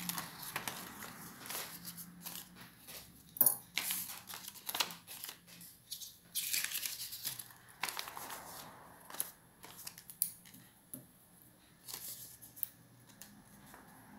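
Small steel scissors snipping through black paper in short, irregular cuts, with the paper rustling as the cut sheet is handled and turned. The loudest sound is a sharp click about three and a half seconds in.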